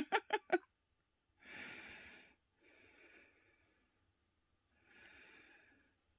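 Faint breathing: a few quick short voice sounds at the very start, then soft exhalations about a second and a half in and again about five seconds in.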